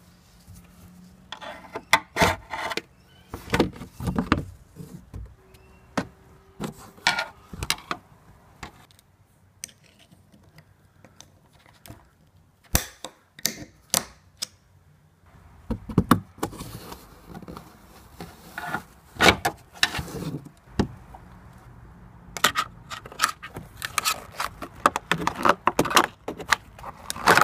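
Handling noises from work on a tailgate gas strut and its trim: clusters of sharp clicks and knocks with some rubbing, broken by a quieter stretch about a third of the way in.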